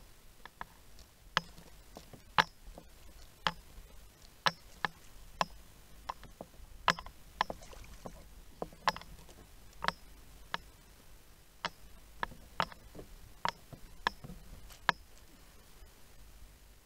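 Irregular sharp clicks and knocks on a plastic fishing kayak and its tackle, roughly one or two a second, over a faint steady background.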